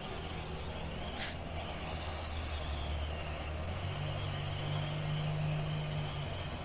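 Firework fountain burning with a steady hiss of sparks, with one sharp crackle about a second in, over a steady low hum.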